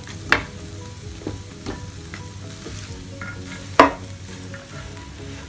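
A wooden spatula stirring and scraping a chicken and mashed potato mixture in a non-stick frying pan, with a low sizzle from the hot pan. A few sharp knocks of bowl and spatula against the pan, the loudest about four seconds in.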